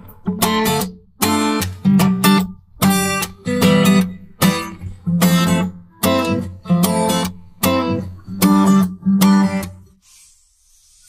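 Background music of strummed guitar chords, one chord after another with short gaps between them; the music stops about a second before the end.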